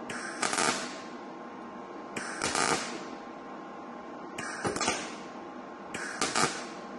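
MIG welder (Lincoln Electric Power MIG 210) striking short tack welds on a steel door panel: four brief bursts of arc, each under a second and about every second and a half to two seconds, with a steady faint hum between them. The welder is set low, about 16 volts, to tack without burning through as a mirror hole is plug-welded shut.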